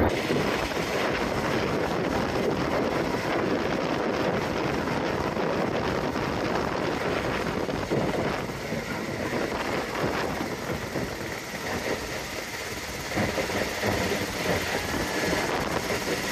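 UH-60 Black Hawk twin-turbine helicopter hovering during a winch hoist, its rotors and engines running steadily.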